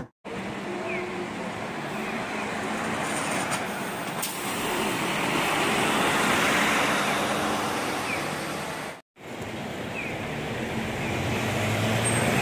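Buses in city traffic. A highway coach drives past, its engine and tyre noise swelling about six seconds in. The sound cuts out briefly about nine seconds in, then a Hino route bus's engine hums low as it pulls off.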